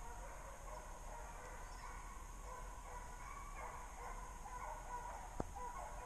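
Deer hounds baying in the distance as they run a trail, faint and patchy, growing a little stronger in the second half. A single sharp click about five seconds in.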